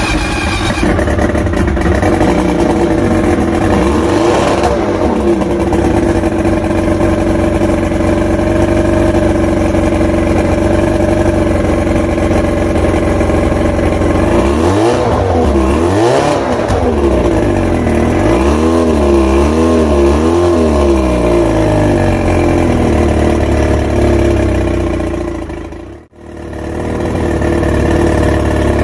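Mercury two-stroke outboard with ADI ignition running on a test stand, freshly timed to about 19 degrees maximum advance. It runs steadily, then is revved up and down several times about halfway through. The sound drops out abruptly for a moment near the end, then carries on.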